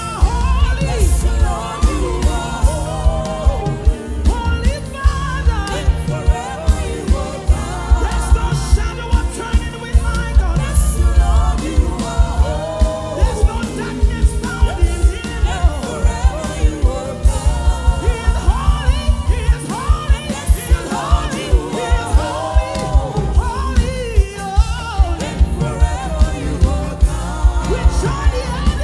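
Live gospel praise music: voices singing over a band with heavy bass and a steady drum beat, about two beats a second.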